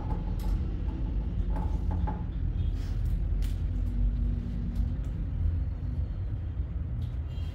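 Steady low background rumble, with a few light clicks and taps scattered through it.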